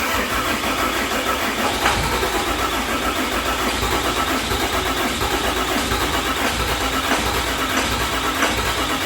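Starter cranking a 6.7 Cummins turbo-diesel engine, turning over steadily without catching: a crank-no-start. It begins suddenly and carries on without change.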